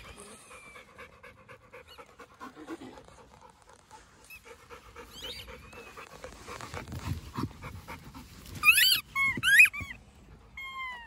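A dog panting close by, in quick, even breaths. About two seconds before the end come a few loud, high squeaks that bend up and down in pitch, and one shorter falling squeak just before the end.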